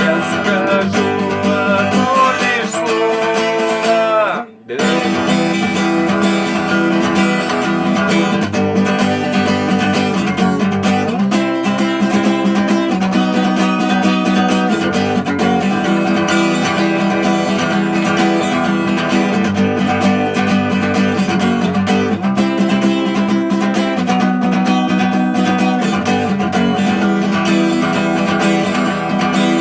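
Music: an instrumental passage of a song, carried by strummed acoustic guitar, with a brief drop-out about four and a half seconds in.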